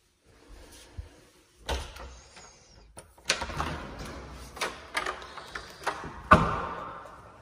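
Interior doors being handled: a panel door pushed shut, then a deadbolt unlocked and a door pulled open, giving a run of latch clicks and knocks. The loudest knock comes near the end and has a short ringing tail.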